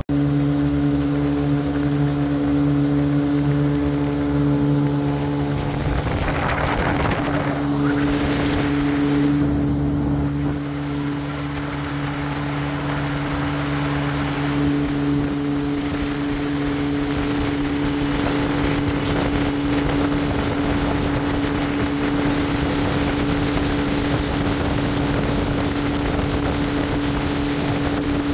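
Motorboat engine running steadily at speed, a constant hum, with the rush of wind and water from the moving boat; the rush swells for a couple of seconds about six seconds in.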